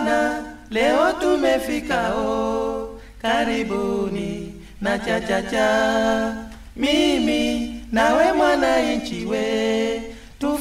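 Unaccompanied singing in Swahili from a 1960s East African 45 rpm vinyl single: an a cappella break in the song, sung in several phrases a second or two long with short pauses between them.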